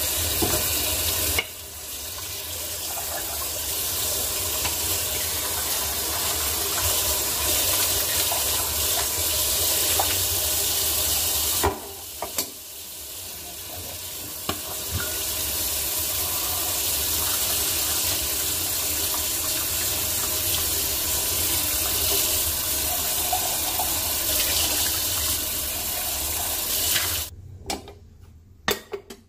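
Kitchen tap running into a stainless-steel sink as an aluminium stovetop moka pot is rinsed under it, water splashing over the pot. The flow drops briefly twice, then stops near the end, followed by a few light knocks.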